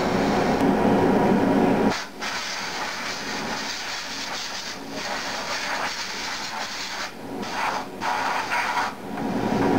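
Hand-held hose nozzle hissing as it clears chips from the vise and table of a Haas CNC mill. The hiss is heavier and lower for about the first two seconds and again at the very end, and breaks off briefly a few times in between.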